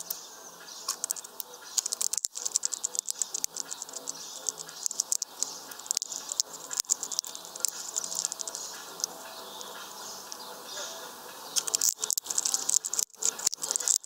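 Hawfinch cracking and husking sunflower seeds in its heavy beak: a run of sharp clicks and crackles, thickest and loudest near the end, over a faint high hiss.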